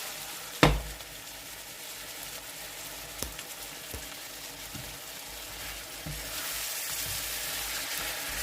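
Asparagus sizzling in butter in a hot pan, a steady frying hiss that grows louder about six seconds in. A sharp knock under a second in is the loudest sound, followed by a few lighter clicks.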